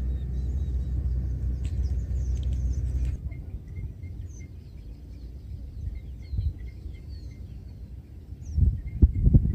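Small birds chirping over a low outdoor rumble: the rumble is steady and loud for about the first three seconds, then drops away, leaving repeated short chirps over light wind noise, with a few loud low buffets near the end.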